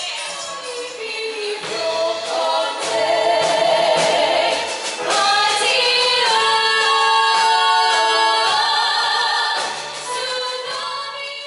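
A female vocal trio singing in close harmony into microphones, holding long sustained notes. The singing fades out toward the end.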